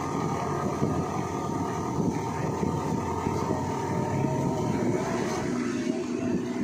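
Off-road 4x4 engine running steadily as the vehicle drives along a trail, its note steadying and rising slightly near the end.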